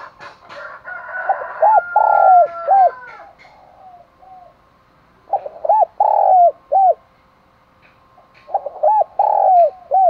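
Spotted dove cooing in three phrases, each of a few arched, rising-and-falling coos, the phrases a few seconds apart. It is the calling coo that a decoy dove gives to lure wild spotted doves.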